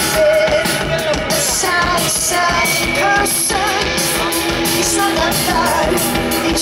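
Post-punk rock band playing live: a woman sings into a microphone over distorted electric guitar and drums with crashing cymbals.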